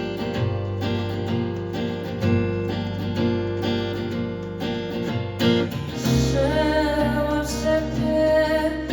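Live acoustic band music: a steady rhythm of strummed acoustic guitar chords. A deep low part joins about six seconds in.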